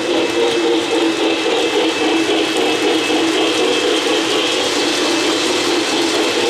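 O-gauge model trains running steadily on three-rail track, with the wheels and motors of the passing cars making a continuous running noise.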